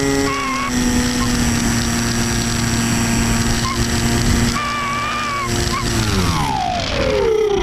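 Electric motor and propeller of an Easystar 2 RC model plane, heard from a camera on board, running with a steady whine. About six seconds in, the whine falls steadily in pitch as the motor slows.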